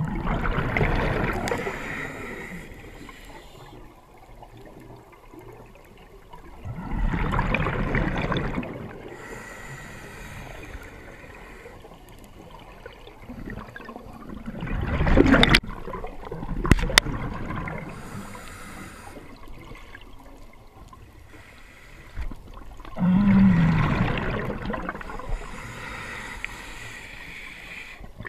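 Water gurgling and rushing in four surges several seconds apart, with a few sharp clicks about halfway through.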